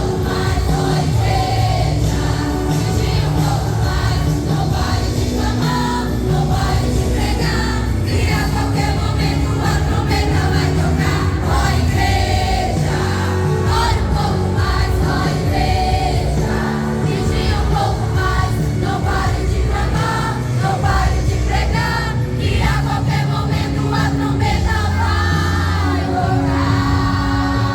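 Youth choir singing a Portuguese-language gospel song over a band accompaniment with a strong, steady bass.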